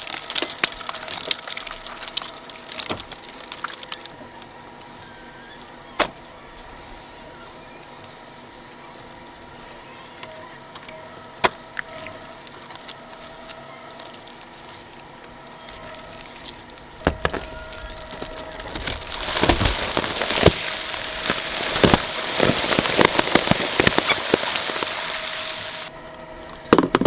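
Shredder motor running with a steady hum, with scattered cracks and then, from about two-thirds of the way in, a long louder stretch of dense crunching and cracking as toys are torn apart in the cutters.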